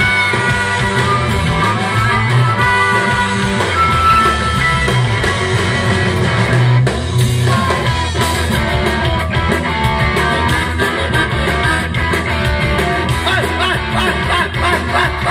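Live rock band playing: electric guitar, bass and drums, with a man singing into a handheld microphone.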